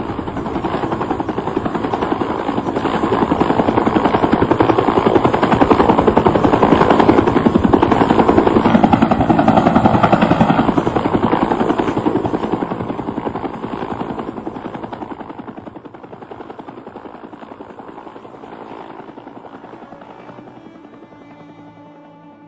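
Helicopter rotor chopping in rapid, steady beats. It grows louder over the first several seconds, then fades away over the second half.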